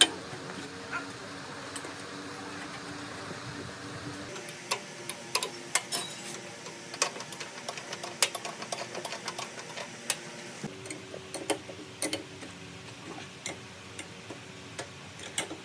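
Caster wheel bolts being fitted and tightened with a metal wrench: irregular sharp metallic clicks and taps, sometimes several a second, over a faint steady hum.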